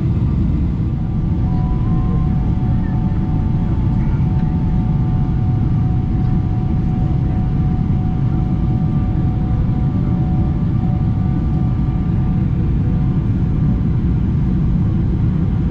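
Boeing 777-300ER cabin noise in flight, heard from a window seat over the wing: a loud, steady low rumble of airflow and its GE90 engines, with a faint steady whine above it.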